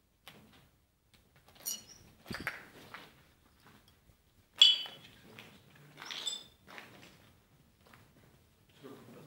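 Footsteps over a rubble-strewn floor, with irregular knocks, scrapes and clinks of debris underfoot; the loudest is a sharp clink about four and a half seconds in.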